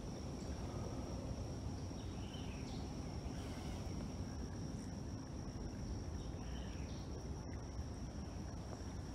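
Woodland insects droning in one steady high-pitched tone, with a few short chirps and a low rumble underneath.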